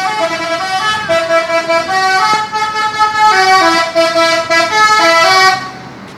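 Zentrum MK telolet bus horn, a multi-tone musical horn, playing a tune of held chords whose notes step up and down in pitch about every half second, cutting off about five and a half seconds in.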